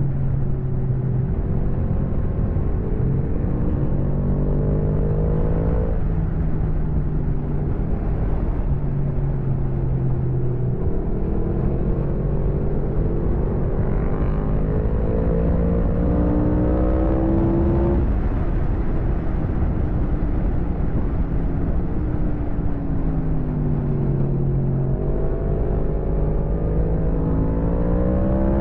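Yamaha MT-10's crossplane inline-four engine running at about 100–120 km/h, its pitch climbing and dropping as the throttle opens and closes. A steady rush of wind sits underneath.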